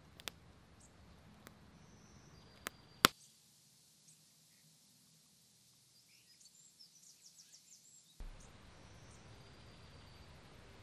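Wood campfire crackling with sharp pops, the loudest about three seconds in. It then gives way to quiet woodland ambience, with a bird's quick run of high chirps near the end.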